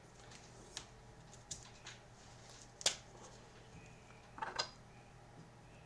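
Trading cards and their plastic being handled: a few faint, scattered clicks and rustles, the loudest near the middle and a short cluster of them near the end.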